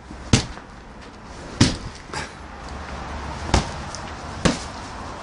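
Wet laundry being shaken out with sharp snaps: four loud flaps at irregular intervals and one fainter one.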